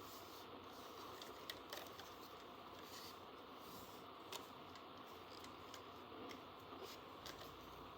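Quiet handling of small plastic toy pieces: a few light clicks and taps over a faint steady hiss.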